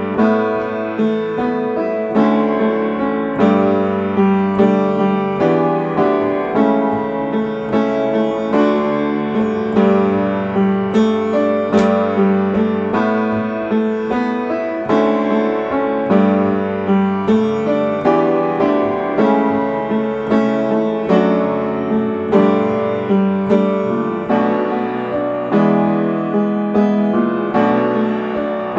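Upright piano playing a simple chordal accompaniment with both hands, chords struck in a steady rhythm.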